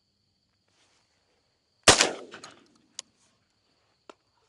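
A single shotgun shot about two seconds in, fired at a dove in flight, with a short trailing decay. Two faint clicks follow about a second apart.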